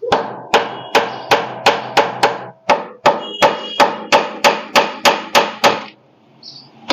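Hammer blows on the metal cup in the clutch housing of a VST Shakti 130 DI power tiller, knocking the lower cup loose to remove it. Sharp, ringing metal-on-metal strikes about three a second, in two runs with a short break in the middle, stopping about six seconds in.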